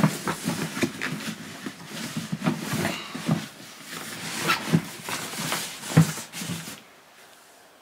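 Rustling and light knocks of packaging and small items being handled, stopping about seven seconds in.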